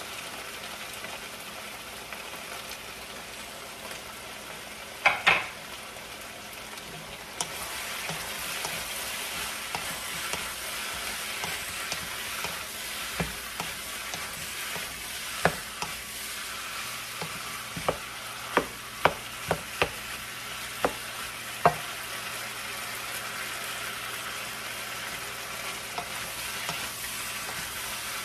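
Beef cubes sizzling as they brown in a hot pan, stirred with a wooden spatula that clacks against the pan a number of times. The sizzle gets louder about seven seconds in.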